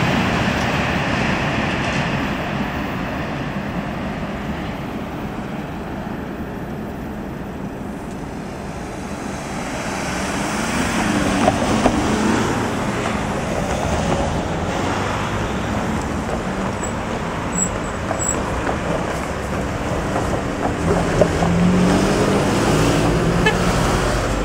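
Road traffic passing: cars, a van and a city bus driving over a railway level crossing and by on the road, with engine and tyre noise that grows louder from about ten seconds in.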